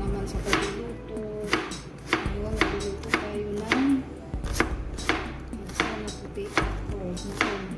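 Chef's knife chopping a red onion on a cutting board, the blade knocking against the board in an even rhythm of about two strokes a second.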